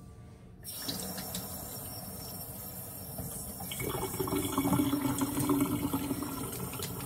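Kitchen sink tap turned on about half a second in and running steadily while hands are washed under it; from about 4 s in the water sound changes and gets louder as the hands go into the stream.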